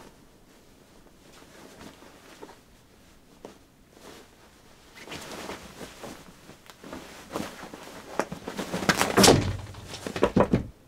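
Two cats scuffling on a bed, with bedding rustling under them. The rustling grows louder about halfway through, and near the end come a few heavy thumps, the loudest about two seconds before the end.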